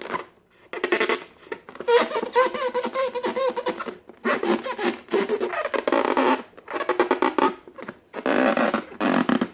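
Slime being squeezed and worked by hand, with wet squelching and crackling in irregular bursts. A squeaky, wavering tone runs for about two seconds in the middle.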